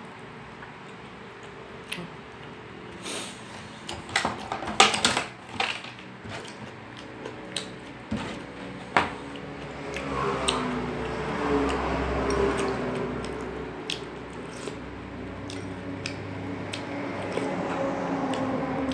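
Close-up mouth sounds of eating rice and fried pork by hand: wet chewing and smacking, with a cluster of sharp crunches about four to five seconds in. A low, wavering pitched sound runs through the second half.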